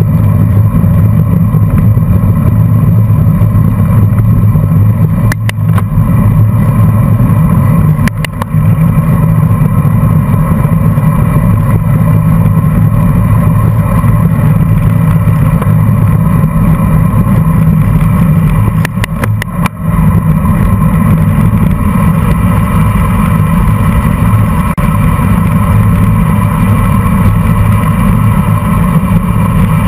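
Steady, loud low rumble of wind buffeting the microphone of a camera mounted on a racing bicycle riding in a pack, with a few brief crackles and dropouts.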